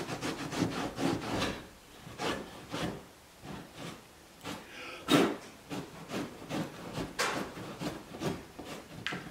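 A cloth towel wiping down the edge of a Corvette's rear wheel opening, in quick, irregular rubbing strokes with a couple of short pauses.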